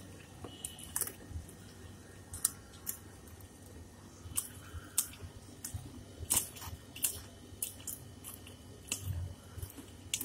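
Wet, irregular squelching and clicking of a hand mixing raw small fish and raw egg in a steel bowl.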